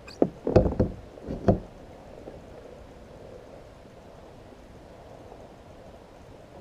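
Several hollow knocks against a kayak hull, bunched in the first second and a half, then a faint steady hiss of outdoor water and air noise.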